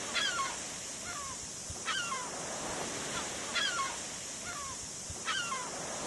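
Southern black-backed gull calling: four short runs of thin, falling whistled notes, evenly spaced about every second and a half, over the steady hiss of surf.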